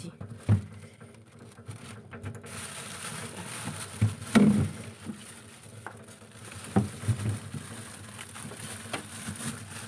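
Scattered knocks and rustling as plastic-bagged vegetables are handled in a refrigerator's crisper drawer, the loudest knock about four seconds in.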